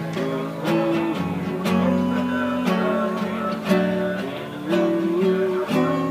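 A man singing a slow melody in long held notes while strumming an acoustic guitar in an even rhythm.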